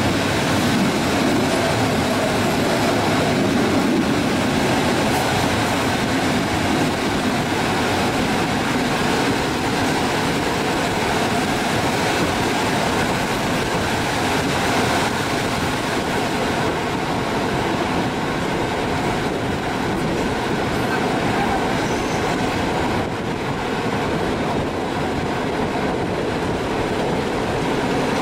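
TLK passenger train carriage rolling slowly along the track: a steady rumble and rattle of the wheels on the rails, heard from inside the moving train.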